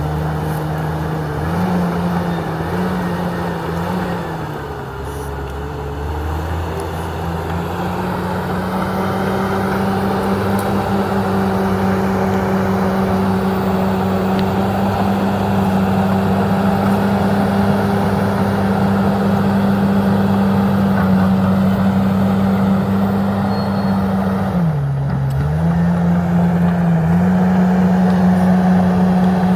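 Komatsu D68ESS bulldozer's diesel engine running hard. Its pitch wavers in the first few seconds, then holds steady, with one sharp dip and recovery about 25 seconds in, as the engine takes load.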